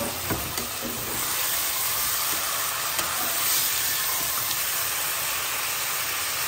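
Marinated chicken pieces sizzling as they fry in hot mustard oil in an aluminium pressure cooker. The pieces are being stirred with a perforated metal spoon that clinks against the pan a few times. The sizzle grows a little louder after about a second.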